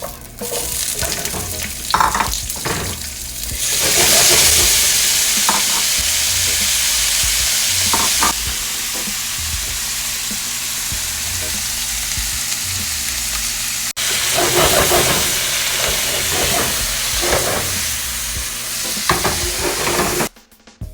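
Food sizzling in hot oil in a pan while a utensil stirs and scrapes it now and then. The sizzle gets louder about four seconds in, breaks off for an instant near the middle, and cuts off just before the end.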